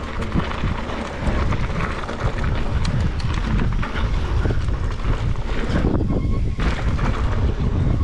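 Mountain bike riding fast down a dirt trail: wind buffeting the microphone and a steady rumble of knobby tyres on dirt, with frequent clicks and rattles from the bike over the rough ground.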